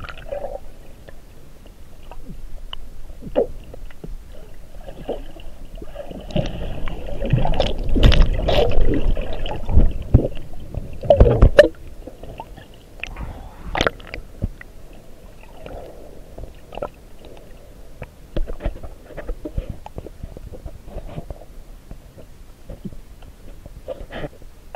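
Muffled underwater water movement picked up by an action camera beneath the surface: a low rumbling and gurgling with irregular clicks and knocks. It grows louder for several seconds about a quarter of the way in, then settles to a quieter wash with scattered clicks.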